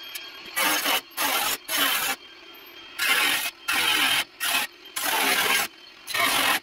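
Welding arc crackling in about eight short bursts, each under a second and cutting off sharply: stitch-welding new steel into the rusted front grille panel of an International Scout.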